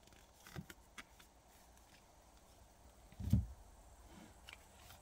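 Faint ticks and light snaps of tarot cards being handled in the hand, with a single short low thump a little over three seconds in.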